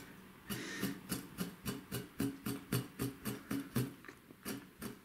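Kitchen knife scoring a small whole fish in quick, even cuts about a millimetre apart, each stroke knocking through onto a plastic cutting board, about four or five strokes a second.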